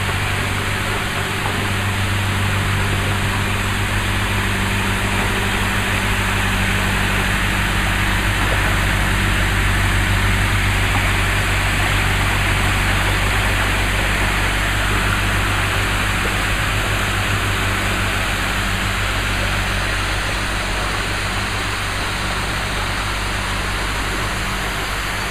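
Narrowboat's diesel engine running slowly and steadily as the boat passes close by, a little louder around the middle and easing off near the end, over a steady hiss.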